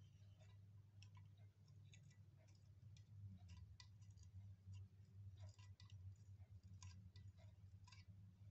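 Near silence: faint, scattered small clicks of hands handling the car head unit's wiring harness and plug connectors, over a steady low hum.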